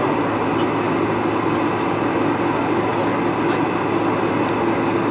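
Steady cabin noise inside a Boeing 747-400 taxiing: an even rumble and hum of the engines at low power and the cabin air system, with a few faint light ticks.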